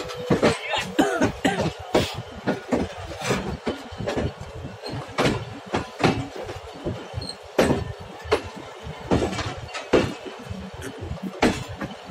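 Passenger train coach rolling slowly, heard from its open doorway: irregular knocks and rattles, several a second.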